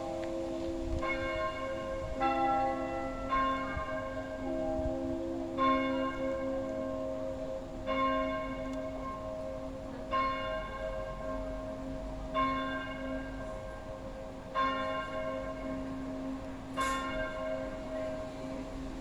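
Abbey church bell tolling, one stroke about every two seconds, each stroke leaving a long hum that rings on between strokes. The first few strokes come quicker, about a second apart.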